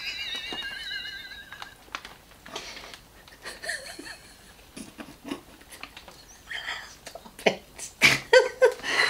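Laughter: a high, wavering squeal of laughter trails off over the first two seconds, then quiet breathy giggling, and a run of short snorting laughs near the end.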